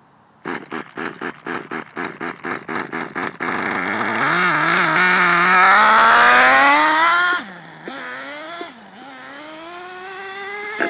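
Traxxas T-Maxx's small nitro engine being cranked, about four to five pulses a second. It catches about three and a half seconds in and revs up in a rising whine. Near the end it drops back sharply, blips twice and then runs steadily as the truck drives.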